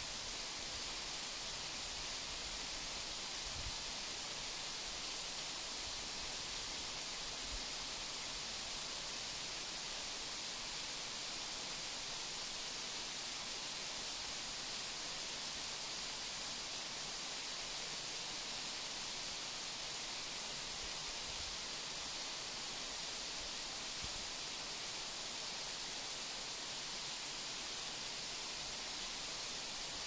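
Waterfall: falling water making a steady, even hiss that does not change.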